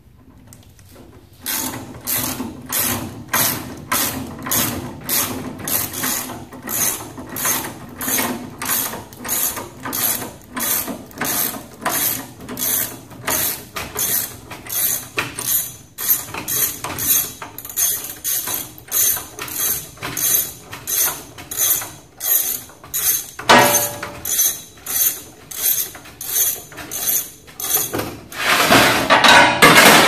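Hand ratchet wrench clicking about twice a second as it tightens the rear-wheel axle of a Ural sidecar motorcycle. It is followed by a louder rustling scrape near the end.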